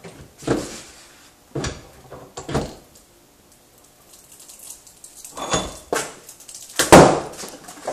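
Steel bench vise being cranked down on a golf ball: a string of about six short knocks and scrapes, the loudest near the end.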